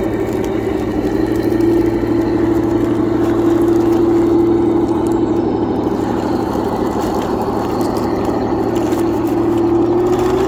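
Heng Long 1/16 scale Tiger 1 RC tank crawling over logs: its drive running steadily through plastic gears and plastic tracks, the pitch rising slightly near the end.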